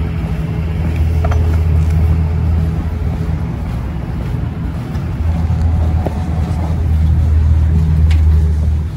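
An engine idling, a steady low hum that dips briefly about halfway through and swells again before falling away at the end.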